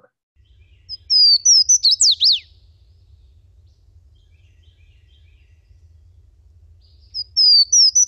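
Swainson's warbler singing: a loud song of several clear, slurred whistles that ends in a few quick down-slurred notes, given about a second in and again near the end. The song sounds a lot like a Louisiana waterthrush's.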